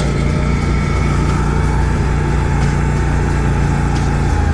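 Engine running steadily, its pitch slowly sinking and dropping lower near the end.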